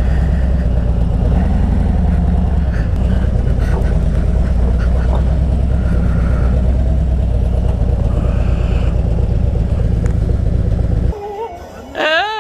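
A vehicle engine running steadily with a loud low rumble, which cuts off suddenly near the end; a short wavering call follows.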